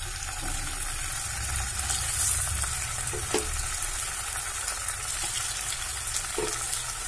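Hilsa (ilish) fish steaks sizzling steadily as they shallow-fry in hot mustard oil, with fine crackles and a couple of light knocks as more pieces go into the pan.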